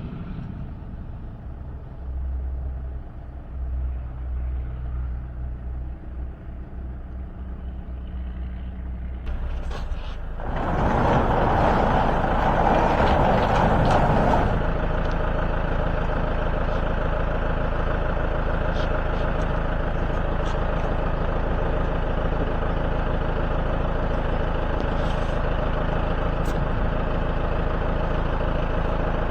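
A large engine running steadily, then revving up about ten seconds in; it is loudest for a few seconds and then settles to a steady, higher-speed run.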